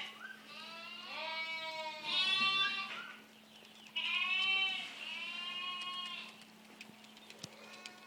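Young farm animals bleating: four high, wavering bleats in two pairs, the last one drawn out.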